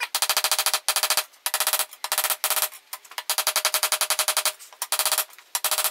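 Ball-peen hammer striking red-hot leaf-spring steel on a steel block anvil, fast blows with a metallic ring, in runs of about a second broken by brief pauses.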